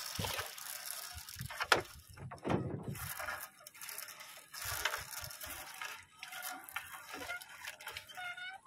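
Wet fishing net being hauled hand over hand over the side of a wooden boat: rustling and scraping of the net, with a few sharp knocks.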